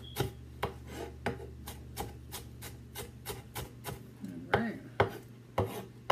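Chef's knife chopping green bell pepper on a wooden cutting board: quick, even knocks about three a second. After about four seconds they give way to a few louder, slower knocks.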